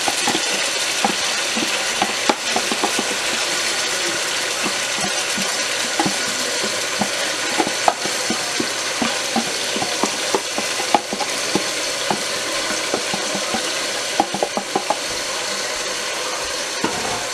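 Yogurt-marinated chicken pieces sizzling as they fry in hot oil with browned onions in a cooking pot, a steady frying hiss with scattered small pops and clicks.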